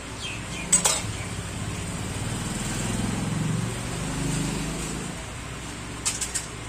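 A motor vehicle's engine passing on the street, swelling for a few seconds and fading again. Sharp clicks come less than a second in and a few more near the end.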